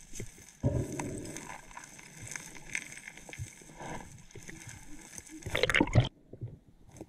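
Underwater sound of a scuba diver's exhaled breath bubbling through the regulator, muffled and gurgling. It comes in two bursts, one about half a second in and a louder one near the end that cuts off sharply.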